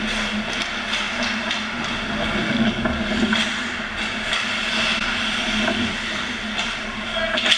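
Ice hockey play on an indoor rink: skate blades scraping and carving on the ice, with scattered clacks of sticks and puck over a steady low hum. A sharp clack stands out near the end.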